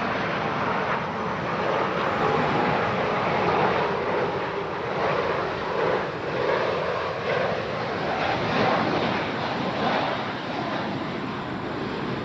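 Jet airliner engines, a steady rushing noise that swells and eases slightly, with a faint whine in the first second or so.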